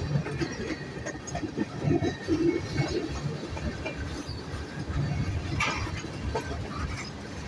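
Norfolk Southern freight train's tank cars and covered hopper cars rolling past: a steady rumble of steel wheels on the rails with scattered clanks and knocks.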